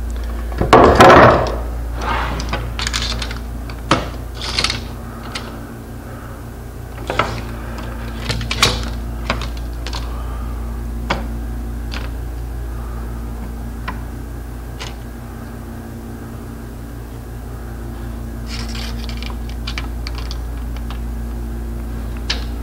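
A wooden board being handled and set down about a second in, then scattered clicks and knocks of a metal tape measure and the table-saw fence being set on the saw table, over a steady low hum.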